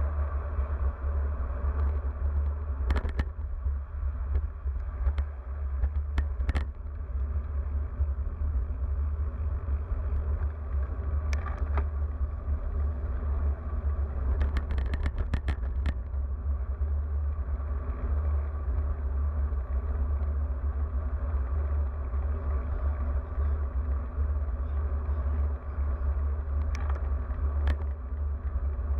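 Wind buffeting the microphone of an action camera on a moving road bicycle: a steady low rumble with road and tyre noise, and a few brief clicks and rattles scattered through it.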